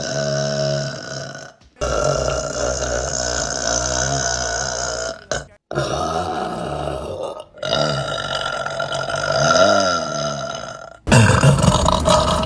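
A woman's long burps, one after another: about five drawn-out burps of one to three seconds each, with abrupt breaks between them. The last, starting about 11 seconds in, is the loudest.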